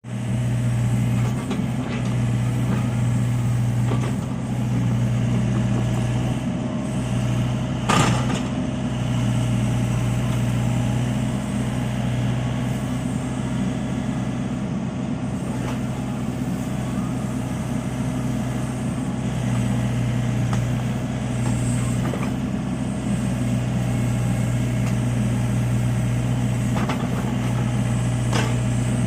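Mini excavator's diesel engine running steadily at a constant speed, with a sharp knock about eight seconds in.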